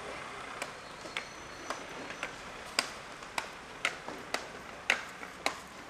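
Footsteps of a person walking toward the microphone on the pavement: sharp clicking steps, about two a second, growing louder over a low street hiss.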